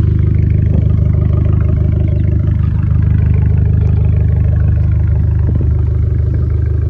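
Abarth 595's turbocharged 1.4-litre four-cylinder engine idling at a steady, even pitch, loud through its straight-through exhaust.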